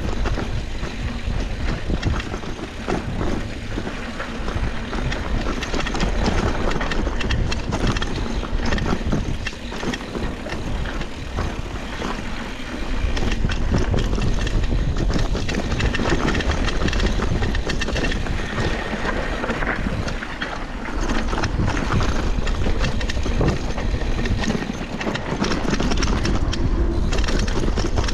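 Mountain bike descending a dirt downhill trail: a steady rush of wind over the microphone and tyre rumble, with constant clatter and knocks from the bike over rough ground; it gets louder about halfway through.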